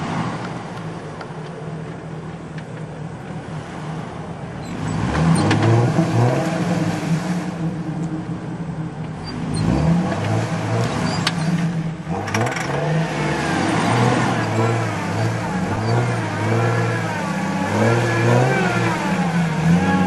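Jeep Wrangler engine revving through a muddy water hole, its pitch rising and falling again and again as the driver works the throttle, getting louder about five seconds in and again from about halfway through.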